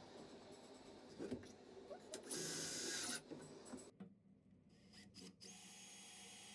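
Cordless drill-driver driving screws into a 2x4 timber upright: a short loud run about two seconds in, then a longer steady run in the second half. Wood rubbing and knocking as the timber is handled come first.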